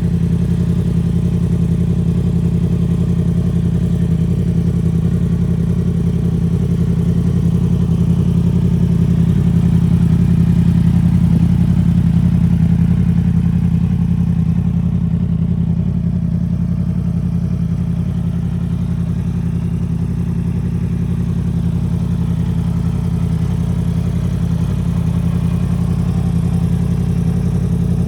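2018 Yamaha R1's crossplane inline-four engine idling steadily through its exhaust, with no revving. The sound grows a little louder around ten seconds in and eases slightly just before twenty seconds.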